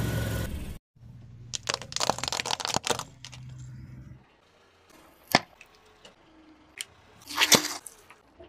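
A car tyre crushing things in turn: first a run of sharp cracks and crunches as a glass bowl of water breaks under it, then one sharp snap, and near the end a short burst of cracking as plastic bottles of bubble liquid split under the tyre.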